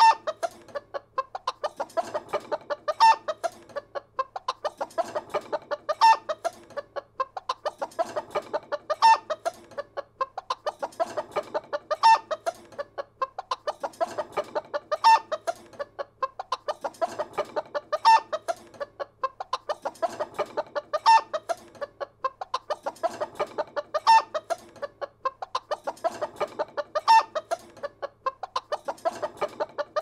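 Chickens clucking: runs of rapid clucks with one louder squawk, the same phrase repeating about every three seconds.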